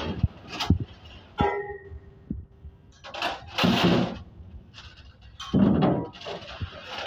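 An Asian elephant blowing out loud, hissing breaths through its trunk, in several separate puffs, with a few low thumps early on and a short steady hum about a second and a half in.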